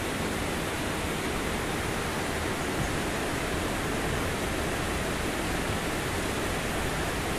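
Steady, even rushing noise outdoors by a river, with no distinct events.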